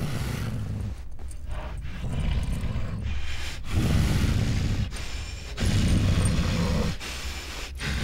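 Deep, rough rumbling that comes in a series of swells about a second long each, with short drops between them.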